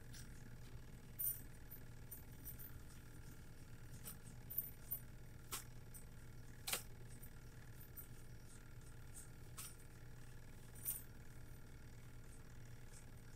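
Quiet room tone with a steady low hum, broken by a handful of light, sharp clicks and clinks scattered irregularly through it.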